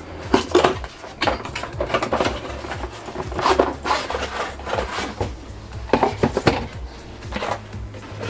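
Cardboard packaging being handled: the sleeve of a small cardboard box slid off and opened, and a molded pulp tray lifted out, giving irregular scrapes, rubs and light knocks.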